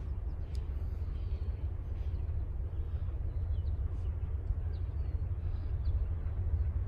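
Low, steady rumble of an approaching diesel locomotive still some distance off, slowly growing louder. Scattered short bird chirps sit above it.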